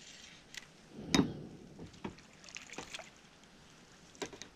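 Scattered sharp knocks and clicks, the loudest a heavier thump about a second in, from handling tackle while a hooked snook is being fought.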